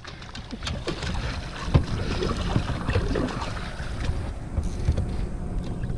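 Wind buffeting the microphone on open water, a steady low rumble with a few light knocks, the sharpest just under two seconds in.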